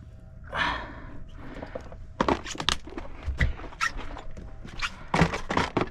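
A short rush of noise, then from about two seconds in a run of irregular knocks and thumps against the fishing boat's hard surfaces as a freshly landed fish is handled aboard.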